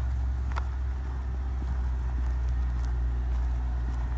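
Storm wind buffeting the microphone as a steady deep rumble, with faint footsteps in snow and a single sharp click about half a second in.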